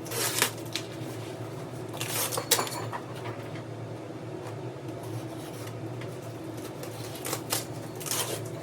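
Packing tape being torn off a cardboard shipping box and the packaging handled, in several short scraping bursts over a steady low hum.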